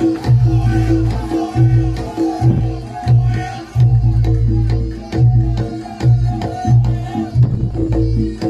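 Javanese gamelan accompaniment for a Bujang Ganong dance: hand drums beat a driving rhythm under steady ringing tones and a wavering melody line.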